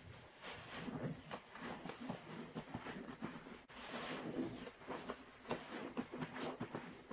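Rubber-gloved hands squeezing and kneading a soaked sponge in a tub of thick Pine-Sol Lemon and Pinalen cleaner suds: wet squishing and crackling of the lather in quick, irregular squelches.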